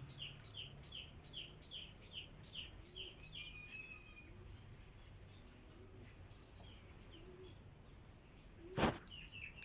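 A bird calling over and over in short, falling chirps, about two a second, thinning out after a few seconds, over a steady high thin insect drone. One sharp knock sounds near the end.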